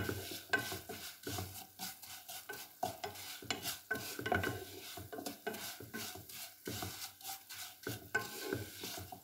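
Dry vermicelli being stirred and toasted in a little hot oil in a pot, with irregular scrapes and clicks against the pot over a faint sizzle. The noodles are being browned until golden before the rice is added.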